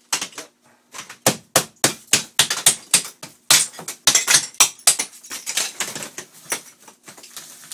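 Hammer blows against a tiled shower wall, with ceramic tile cracking and clattering down in pieces: a fast, irregular run of sharp impacts that starts about a second in. The tile comes away easily because water got behind it and rotted the wall backing.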